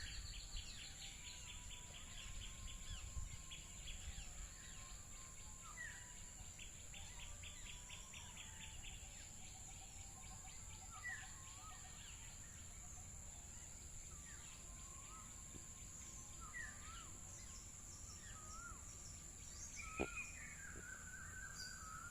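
Birds calling with short whistled notes, glides and rapid trills, over a steady high-pitched insect drone. One sharp click comes near the end.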